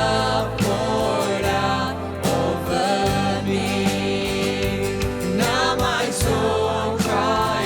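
Worship song in church: voices singing a slow hymn over sustained instrumental accompaniment.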